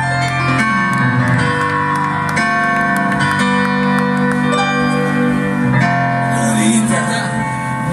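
Live rock band playing the slow instrumental intro of a song: held keyboard chords with guitar, changing every second or two, and a hissing wash that swells in near the end.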